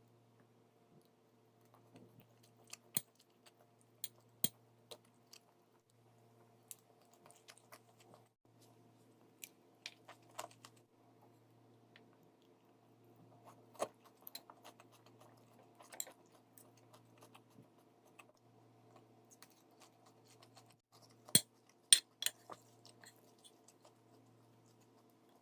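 A person eating, chewing with scattered crunches and sharp clicks. The loudest clicks come in a quick cluster near the end, over a faint steady hum.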